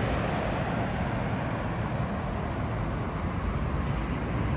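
Twin-engine jet airliner on final approach with its landing gear down, its engines a steady rumble that fades as it descends away toward the runway.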